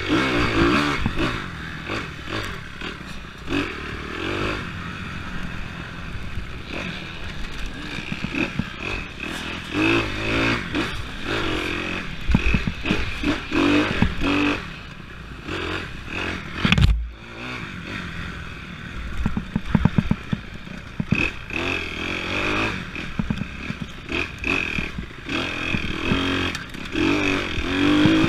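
Dirt bike engine revving up and down through the gears as it races along a rough trail, with rattling and knocks from the bike over bumps. A single heavy thump stands out about seventeen seconds in.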